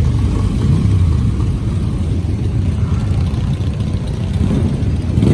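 Many motorcycle engines running together as a large group of classic and custom bikes moves off at low speed, a steady, loud low engine sound.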